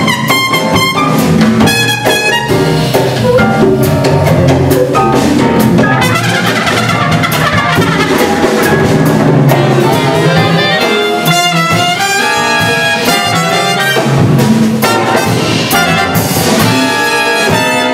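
Live jazz orchestra playing: brass and saxophones sounding full chords over bass and hand drums.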